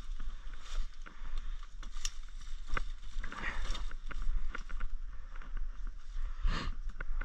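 Footsteps and rustling through forest undergrowth, with twigs and leaves crackling in irregular clicks and a louder crunch of brush near the end, over a steady low rumble on the microphone.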